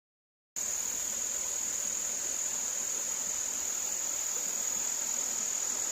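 Woodland insect chorus, cricket-like, one steady high-pitched trill that cuts in abruptly about half a second in after a moment of dead silence.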